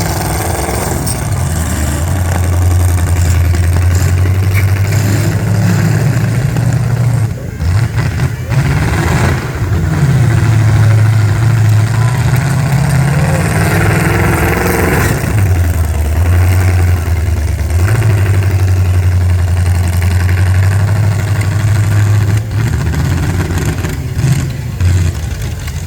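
Demolition derby cars' engines running loudly, revving up and dropping back several times.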